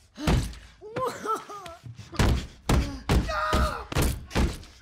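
A rapid series of heavy thuds: a man's head being slammed again and again against an apartment wall, with pained cries and grunts between the blows.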